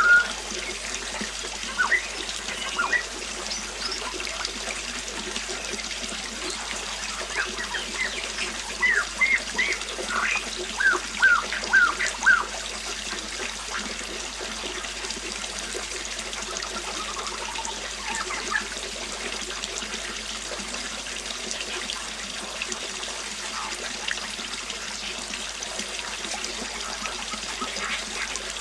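Steady rushing of a flowing river, with birds chirping over it. The chirps come in quick runs of short notes through the first half, then thin out to a few near the middle, leaving mostly the water.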